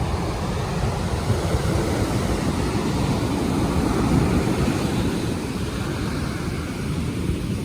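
Surf washing on the beach, with wind rumbling on the microphone: a steady, unbroken rushing.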